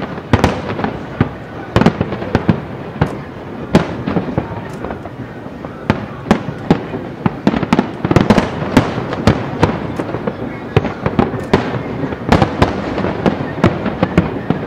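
Aerial fireworks shells bursting in a dense barrage: many booms and sharp bangs a second, overlapping, with crackling between them.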